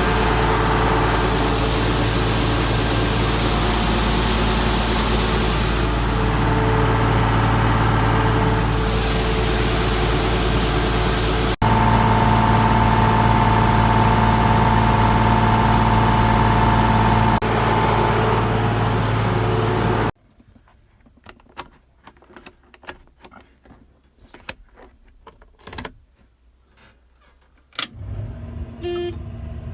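Farm tractor's diesel engine running steadily under load, heard in a few clips edited together. About 20 seconds in it cuts to a quiet stretch of scattered light clicks and knocks, and a low engine rumble comes back near the end.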